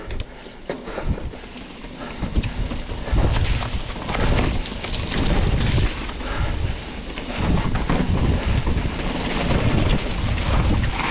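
Mountain bike riding over a rocky trail: wind rumbling on the microphone in surges over the rattle and crunch of tyres on rock, with a few sharp knocks in the first second.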